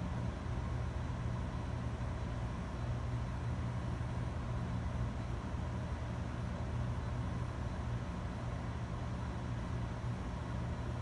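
Steady hum and fan noise from running computer and network equipment, with a low electrical hum underneath.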